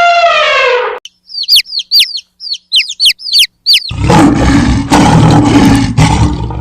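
A held, horn-like tone dips in pitch and ends about a second in. A quick series of about nine sharp bird chirps follows, each sweeping down in pitch. Then, about four seconds in, a large animal's loud, rough roar begins and runs about three seconds.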